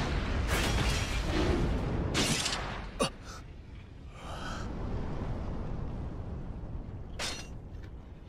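Anime battle sound effects: a heavy rumbling roar for the first few seconds, a sharp crack about three seconds in, then a lower steady rumble with another brief hit near the end.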